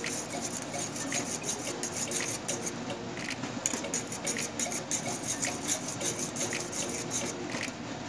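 Wire whisk stirring a yogurt sauce in a stainless-steel saucepan, its wires scraping and ticking against the pan with a few light clicks a second.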